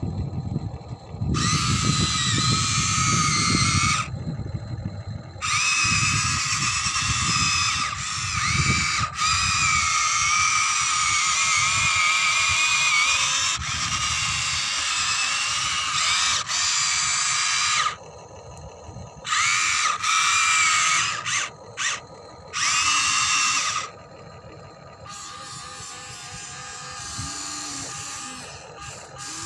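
Small electric motors of a radio-controlled toy excavator whining as the boom, arm and bucket move. The whine comes in long stretches broken by short pauses, its pitch sliding up and down, and it is softer near the end.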